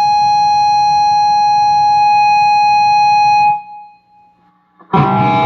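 Steady high-pitched whine over a low buzz from the Peavey 6505+ combo's lead channel with the Zoom G1X Four in its effects loop, stopping suddenly about three and a half seconds in. A distorted electric guitar chord is struck near the end.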